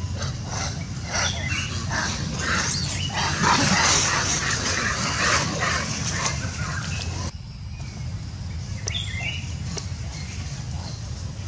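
Long-tailed macaques calling: a run of short, sharp squeals and barks, loudest around four seconds in, over a steady low hum. The sound breaks off for a moment about seven seconds in, then fainter calls go on.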